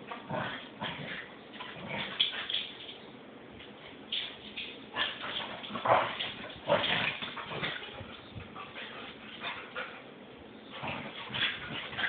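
Two Cardigan Welsh corgis playing together: an irregular run of short yips, whimpers and barks, loudest about six seconds in and quieter for a moment before picking up again near the end.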